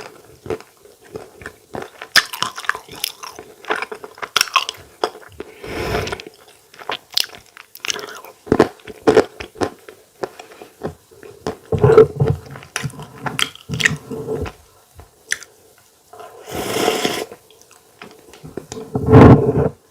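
Close-miked eating sounds: a person chewing and biting food with irregular wet smacks and clicks of the mouth, with a few louder bursts.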